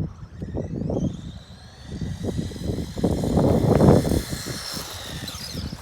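Electric 380 motor of a 1/18 WLtoys A979 RC monster truck whining at full throttle on a top-speed run, its pitch slowly rising, then dropping just before the end. Gusts of wind rumble on the microphone underneath.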